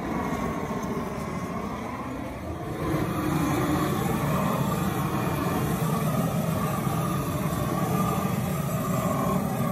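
A hose-fed propane torch wand burning steadily as it lights charcoal in a barrel grill. It starts suddenly and grows louder about three seconds in.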